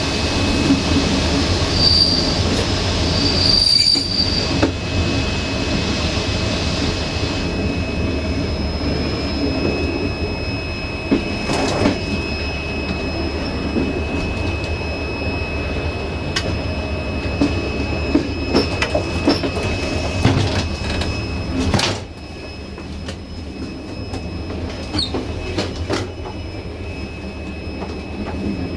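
Passenger train running on the rails, its wheels giving a steady high-pitched squeal over the low rumble, with scattered sharp clicks from the track. The running noise drops a little about 22 seconds in.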